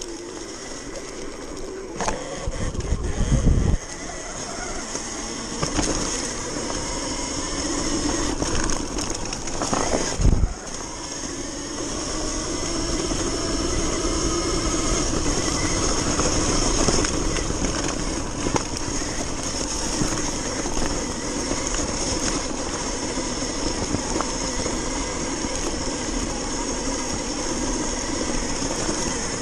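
Sur-Ron electric dirt bike ridden at speed on a dirt trail: continuous rushing wind and tyre noise with a steady high whine, and low thumps about 2 to 4 seconds in and again about 10 seconds in.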